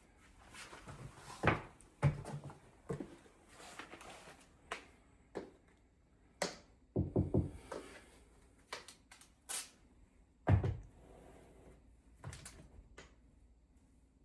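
A string of irregular knocks and clicks from hardware being handled, with a quick run of knocks in the middle and single louder knocks before and after.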